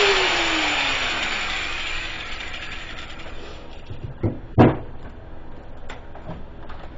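Harbor Freight Drillmaster 4-1/2 in. angle grinder winding down after grinding stops, its whine falling in pitch and fading over about two seconds. Then two short knocks come a little past four seconds, followed by a few faint clicks.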